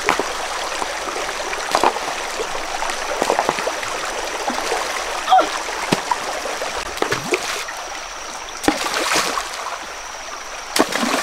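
Shallow rocky stream running steadily, broken by a handful of sudden splashes and knocks as stones are tossed into the water.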